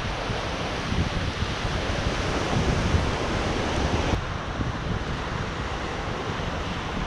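Ocean surf breaking on a sandy beach, with wind buffeting the microphone in uneven low gusts. About four seconds in, the higher hiss drops away abruptly.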